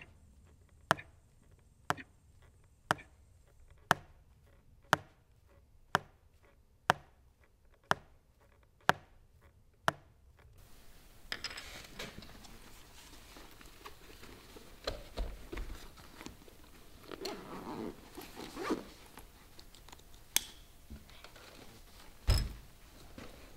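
A wall clock ticking, one sharp tick a second, stops about ten seconds in. Room tone follows, with soft rustling and knocks of a bag being handled and one heavy thump near the end.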